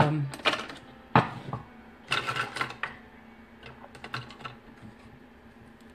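Irregular light clicks and taps of small objects being handled close to the microphone, with a sharp click about a second in and small clusters of clicking around two and four seconds in.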